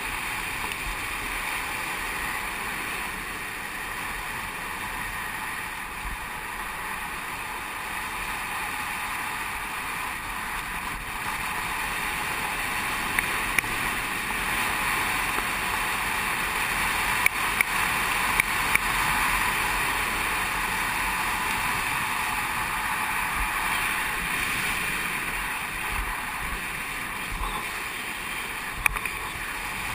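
Steady rushing noise of longboard wheels rolling fast down asphalt, with wind, growing a little louder in the middle. A handful of sharp clicks come in the middle and one more near the end.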